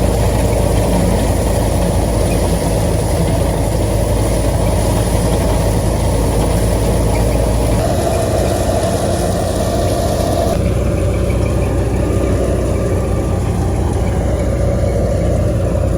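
Tractor-powered wheat threshing machine running, a steady loud engine drone with the thresher's rumble. The sound shifts abruptly about eight and again about ten and a half seconds in.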